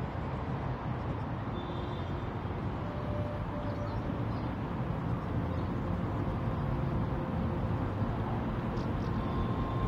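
Steady low rumble of city traffic ambience, with a few faint brief tones over it.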